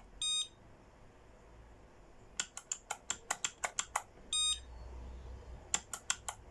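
A push button on an escape-room kerosene-lamp prop is clicked rapidly in runs of several presses while its password is being set. Each run is followed by a short electronic beep from the prop: one just after the start, one near 4.5 s, and a quick run of four clicks near the end.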